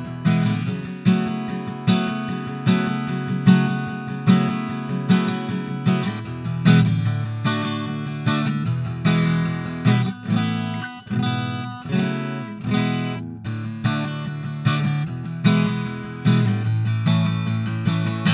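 Steel-string acoustic guitar strummed in a steady chord rhythm, close-miked through a Miktek T89 supercardioid dynamic microphone.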